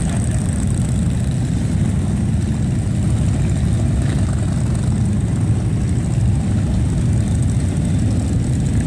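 Many large touring motorcycle engines running together as a line of bikes rolls slowly past: a steady, loud, deep sound with no break.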